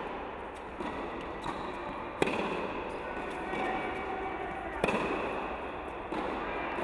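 Tennis ball struck by racket strings in a rally, two sharp pops about two and a half seconds apart, echoing in an indoor hall, with fainter knocks between.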